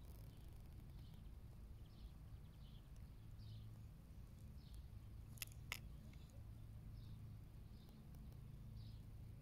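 Near silence with a small animal's faint, short, high chirps repeating unevenly about once a second, and two sharp clicks close together a little past the middle.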